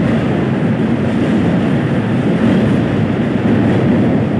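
Train running over a steel truss rail bridge, heard from on board: a loud, steady rumble of wheels on rails.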